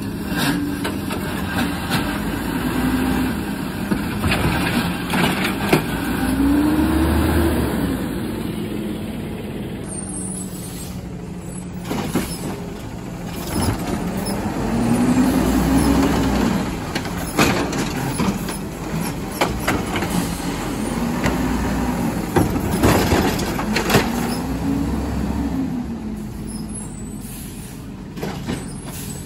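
Garbage truck's diesel engine idling, then revving up and settling back down three times, about eight seconds apart, as it works its load of trash, with scattered sharp knocks and clatter in between.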